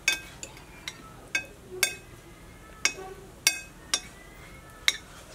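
Metal spoons clinking against ceramic and glass bowls during a meal: about nine light, irregular clinks, several ringing briefly.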